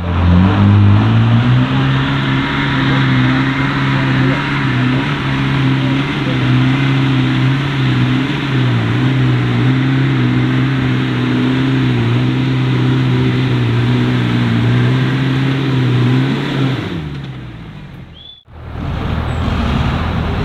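Off-road 4x4's engine revving up in the first second and held at steady high revs under load for about fifteen seconds, with a steady hiss above it, then the revs fall away. After a brief dropout near the end, an engine runs at lower revs.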